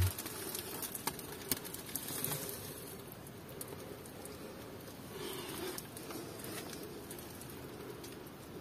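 Faint ambience inside a hand-dug gold mine tunnel: scattered light clicks and ticks in the first couple of seconds, a brief rustle about five seconds in, over a steady faint hum.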